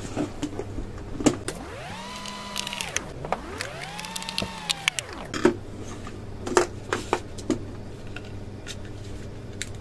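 Plastic pluggable terminal connectors clicking and tapping as they are handled and pushed onto an electronic controller, over a steady low hum. Two whirring tones about two and four seconds in each rise in pitch, hold and then fall away.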